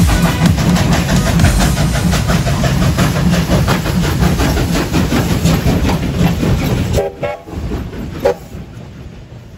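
Steam locomotive K 100 working past at close range, its exhaust beating rapidly and rhythmically over a heavy low rumble. About seven seconds in, the exhaust drops away as the engine passes, leaving the goods wagons rolling by with a few brief high squeals as the sound fades.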